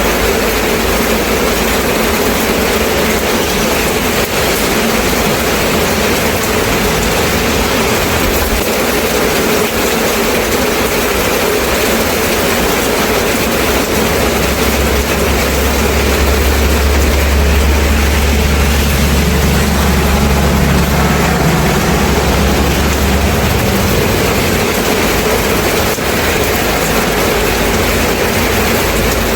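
Steady heavy rain falling. From about halfway through, a low engine rumble rises under the rain for about ten seconds and fades, like a passing vehicle.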